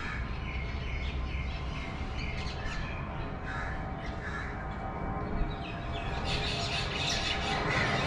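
Crows cawing: a few harsh calls in the first half and a denser run of calls near the end, over a steady low rumble.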